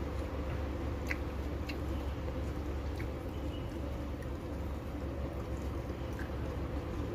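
A person chewing fried tempeh and basil leaves, with a few short wet mouth clicks, over a steady low hum.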